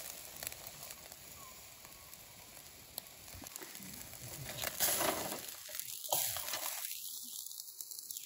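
Fish sizzling on a wire grill over hot charcoal: a steady hiss of fat and juices with small crackles and pops, growing louder about halfway through.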